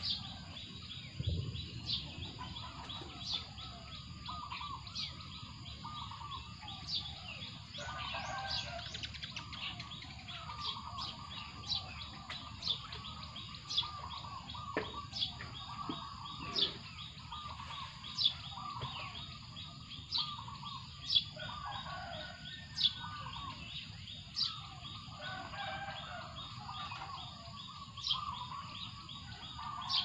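Rural birdsong: sharp high chirps, each falling in pitch, repeat every second or two over lower warbling calls and a steady high trill, with a steady low rumble underneath.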